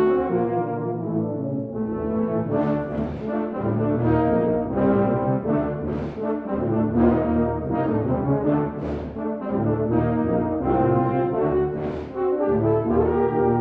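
Tuba/euphonium quartet (two euphoniums, two tubas) playing a rhythmic passage of low brass chords, with strongly accented attacks recurring every few seconds over sustained lower notes.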